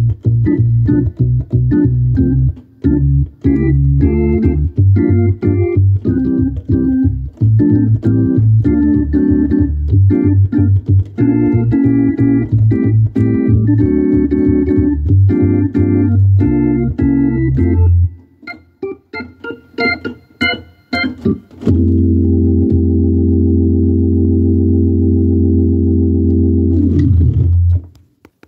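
Organ playing a rhythmic chordal passage over a bass line, then a few high notes without bass. It closes on a long held final chord that slides down in pitch and cuts off just before the end.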